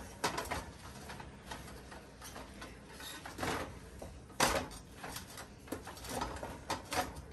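Wooden spatula stirring chopped greens in a metal pot, with irregular scrapes and knocks against the pan. One knock about four and a half seconds in is louder than the rest.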